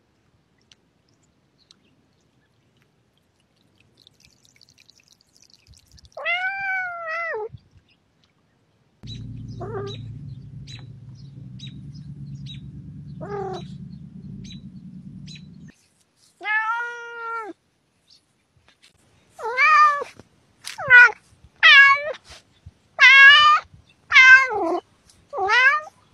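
Domestic cat meowing: a drawn-out meow, a few shorter quieter ones, then a run of six loud meows in quick succession near the end.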